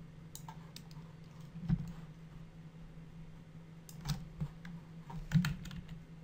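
Scattered clicks of a computer keyboard and mouse, a few at a time, the sharpest about two seconds in and near five and a half seconds, over a steady low electrical hum.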